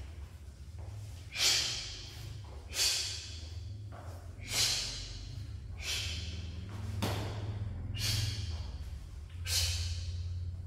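A martial artist's sharp, forceful breaths, exhaled with each strike and turn of a hand form: about seven short hissing breaths that die away quickly, over a low steady hum.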